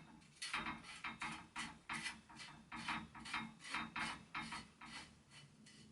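Threaded headset top cap of a Brand X headset being screwed by hand down the fork's threaded steerer, each turn giving a short rasp of metal on metal at about three strokes a second, with a pause near the end. The cap is running on the suspect threads without binding.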